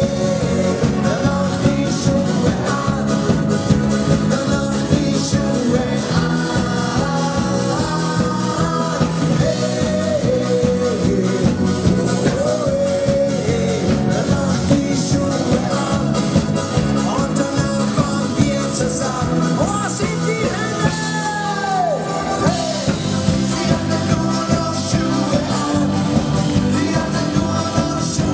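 Live band playing a song with a sung vocal over accordion, electric guitars, bass and drums, with a steady beat. The bass drops out briefly about three quarters of the way through.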